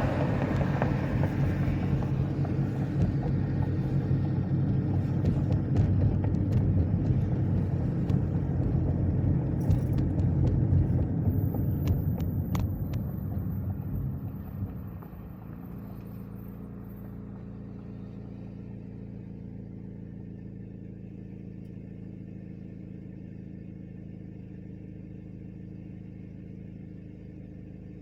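A 2010 Chevrolet Equinox driving, with steady road and engine rumble. About halfway through, the rumble drops away to a quieter, steady engine idle as the car comes to rest.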